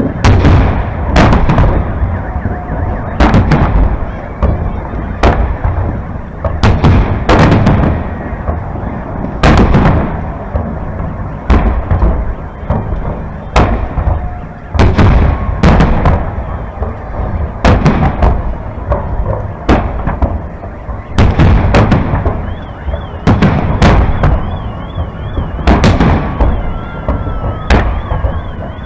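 Aerial fireworks shells bursting overhead in a steady barrage, one or two deep booms a second.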